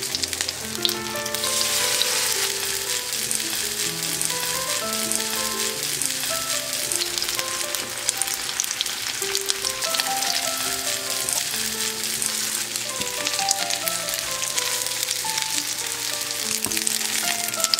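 Cabbage and radish jeon sizzling in oil in a frying pan, the sizzle getting louder about two seconds in. Light background music plays over it.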